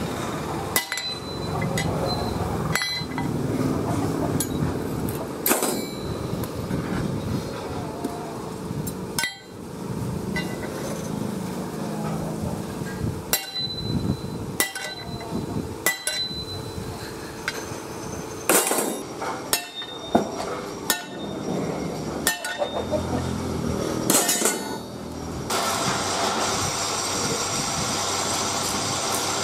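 A sledgehammer striking a steel strip held on a round iron die, a dozen or so separate blows at irregular intervals, each ringing with a metallic clink. About 25 seconds in this gives way to the steady noise of an angle grinder working a steel cage wheel frame.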